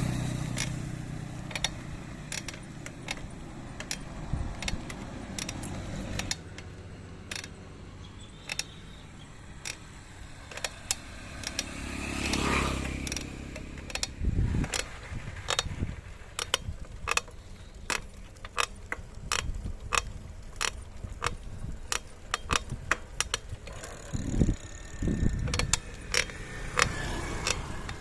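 Bottom bracket of a Montra Downtown bicycle making a weird creaking noise: a run of short, sharp clicks that come more often from about halfway through. Passing traffic swells up once near the start and again about twelve seconds in.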